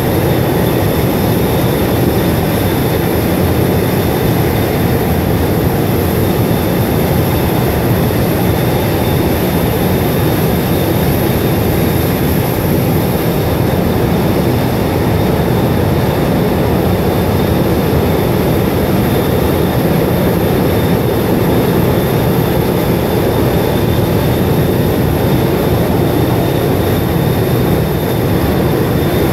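Loud, steady roar of high-pressure steam venting from a ruptured underground steam main, with a thin high whistle held throughout.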